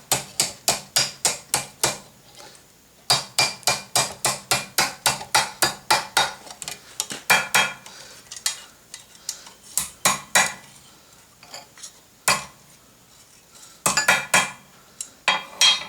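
Hand hammer striking a hot steel S-hook against a blacksmith's anvil, a bick iron, to bend and square the curl. The blows are sharp and ringing, about four a second, in several runs with short pauses and a single blow in between.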